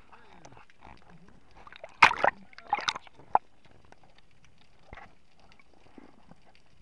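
Underwater: scuba regulator exhaust bubbles rushing past the camera in two short bursts about two seconds in, followed by a sharp click, over a faint steady hiss.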